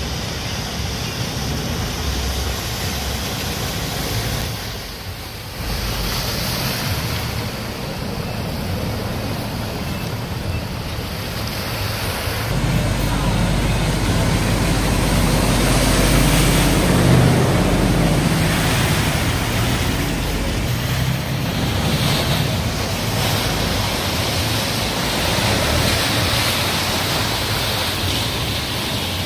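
Khlong Saen Saep canal express boat's engine running and its wake churning the canal water as the boat speeds past close by. The low engine rumble and rush of water are loudest for several seconds in the middle as it passes.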